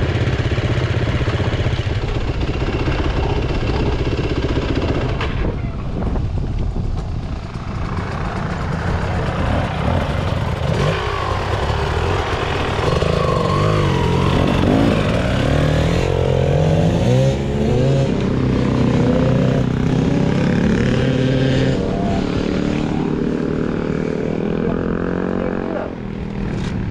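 Dirt bike engines idling, with the engine pitch rising and falling repeatedly through the middle as a bike is revved, then settling back to a steady idle.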